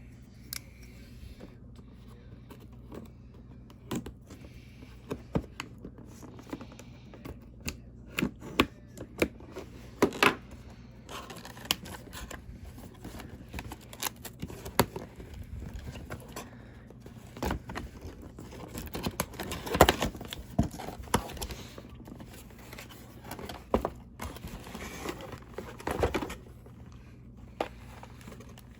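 Headphone packaging being handled and opened: crinkling and tearing, with many irregular clicks and taps of box and parts being handled.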